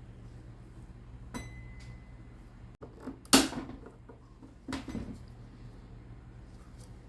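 Handling knocks of parts and tools during a teardown: a light click with a brief thin metallic ring about a second in, then a sharp loud knock and a second, softer clatter a little over a second later, over a steady low hum.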